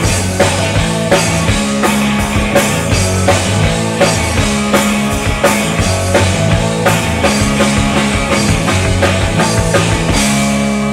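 Rock band playing an instrumental passage: a steady drum-kit beat over a repeating bass line with guitar. About ten seconds in the drums stop and a held chord rings on.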